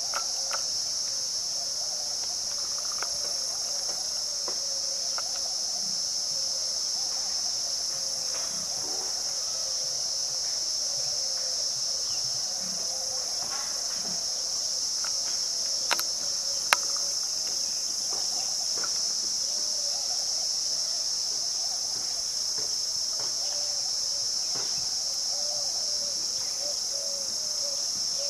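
Steady, high-pitched chorus of insects chirring without pause. Two sharp clicks come about a second apart a little past halfway.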